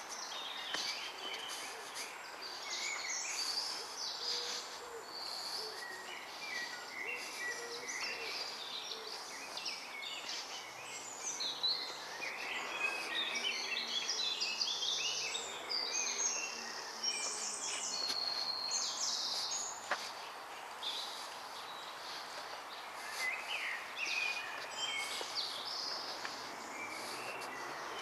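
Woodland songbirds singing and calling together: many overlapping high chirps, trills and whistled phrases from several birds at once.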